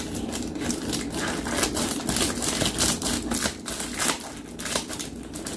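Scissors snipping across the top of a plastic mailer bag, with the plastic crinkling as it is cut and handled; a rapid, irregular run of small clicks and crackles.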